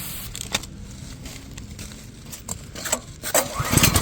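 A few light clicks and knocks, then about three seconds in the pressure washer's small gas engine is pulled over by its recoil starter on a cold start: a fast, even run of pulses, about ten a second, as the engine turns over without catching.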